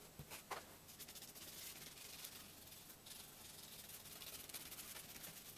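Faint rubbing and scraping of foam tack glue being spread thin over a foam surface with a small applicator, with a couple of light ticks in the first second.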